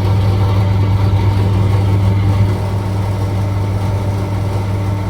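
Diesel injector test bench running: its motor-driven high-pressure pump hums steadily with a strong low drone, building pressure before the common-rail injector is fired.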